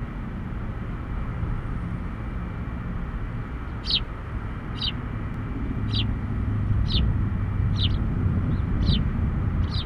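A bird calls a short, falling chirp about once a second, seven times from about four seconds in, over a steady low rumble.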